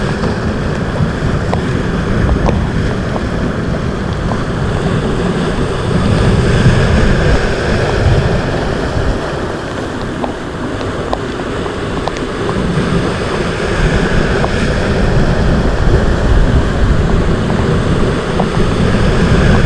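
Rough sea waves surging, with strong wind buffeting the microphone into a heavy low rumble that swells and eases over a few seconds.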